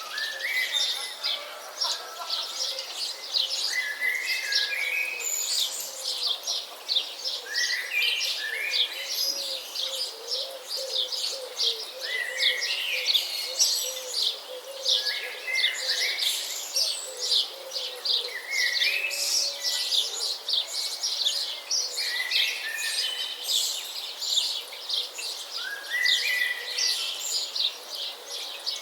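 Several birds chirping and singing at once: a dense stream of quick high chirps, with one bird repeating a short rising phrase every two to three seconds.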